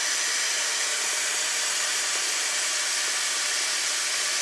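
Kitchen faucet running a steady stream of tap water into a plastic container in a stainless steel sink.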